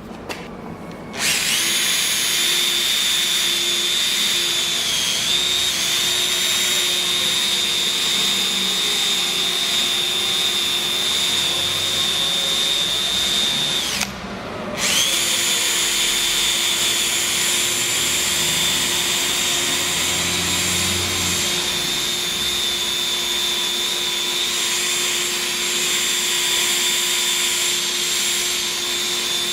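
Electric drill spinning a sanding pad with 500-grit paper against a plastic headlamp lens, a steady whine. It starts about a second in, stops for about a second halfway through, then runs on steadily.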